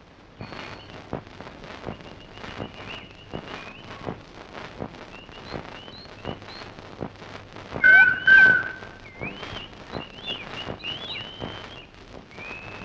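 Birds chirping and whistling in woodland, in short high chirps, with one louder whistled call about eight seconds in. Light taps sound about twice a second underneath.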